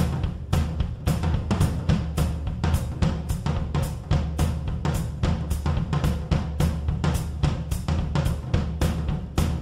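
Background music with a drum kit playing a steady beat, about four strokes a second, over a bass line.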